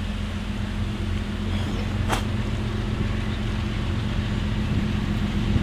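Diesel locomotives of an approaching CSX freight train, heard from a distance as a steady low engine drone. A brief sharp click comes about two seconds in.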